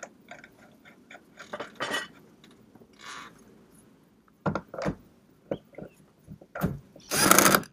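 Light metal clinks of a nut and washer being threaded by hand onto the steering-wheel shaft, then a few knocks as a Makita DTW450 cordless impact wrench is set on the nut. Near the end come two short bursts of the impact wrench hammering the nut tight.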